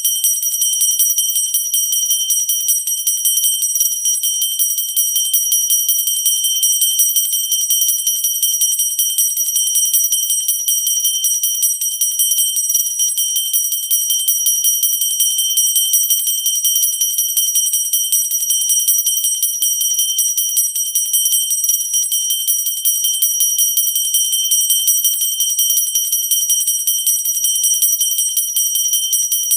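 Pooja hand bell rung continuously, its clapper striking many times a second to give a steady, high-pitched ringing.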